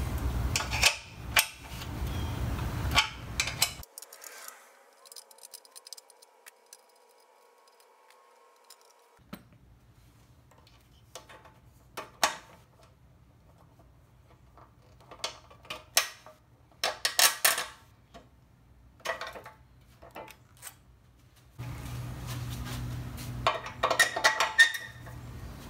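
Hand tools clicking and clinking on metal as the upper fuel-tank bolt of a motorcycle is loosened and drawn out: a dense run of clicks at first, then a quiet stretch, then scattered sharp metal taps and a busier burst of clicks near the end.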